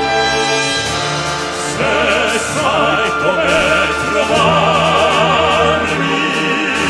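Male classical-crossover vocal group singing in operatic style with strong vibrato over orchestral accompaniment. The voices come in about two seconds in, over an instrumental passage.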